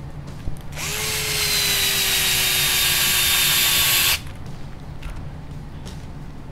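Electric power screwdriver running for about three seconds with a steady whine, then cutting off suddenly, driving screws into the diff cup of an RC buggy differential.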